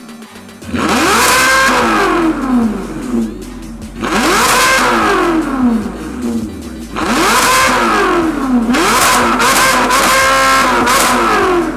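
Ferrari California V8 free-revving through an aftermarket Fi valvetronic exhaust with catless downpipe: three sharp throttle blips, each rising in pitch and falling back, then a quick string of several blips near the end. The later blips are made with the exhaust valves switched open.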